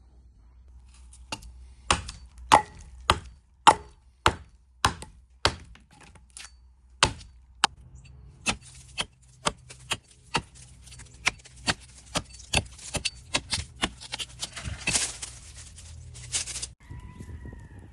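Camping hatchet striking wood in a series of sharp chops, about two a second. From about eight seconds in comes a quicker run of lighter strikes, which cuts off suddenly near the end.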